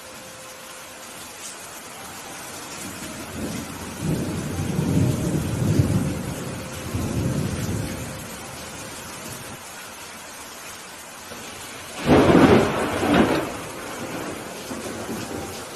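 Steady rain with thunder: a low rolling rumble from about four to eight seconds in, then a sudden, much louder thunderclap about twelve seconds in.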